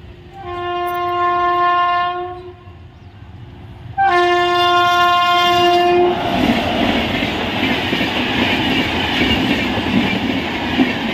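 Electric locomotive's air horn sounding two long blasts of about two seconds each, the second starting suddenly about four seconds in. Then an express passenger train passes at speed: a loud steady rush of wheels on rail as the locomotive and coaches go by.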